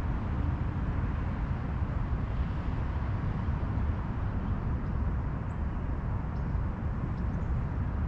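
Steady low outdoor rumble with a fluttering level, with a few faint, short, high bird chirps in the second half.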